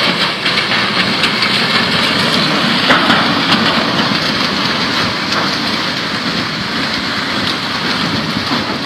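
Steady, loud rush and rumble of a muddy flash flood flowing down a rocky riverbed, carrying logs and branches, with faint scattered knocks.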